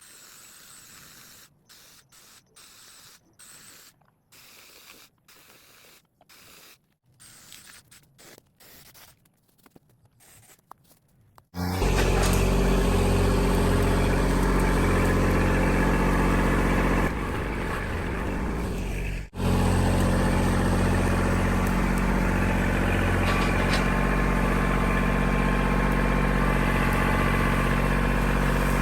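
Faint, choppy low sounds, then about twelve seconds in a Kubota L2501 tractor's three-cylinder diesel engine comes in abruptly and runs loud and steady, dipping briefly and cutting out for an instant about two-thirds of the way through.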